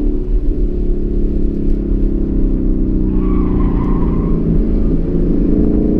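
2015 Ford Mustang GT's 5.0-litre V8 heard from inside the car on track, running at fairly steady revs through a corner. The tyres squeal briefly about three seconds in, and near the end the engine pitch rises as the car accelerates out of the turn.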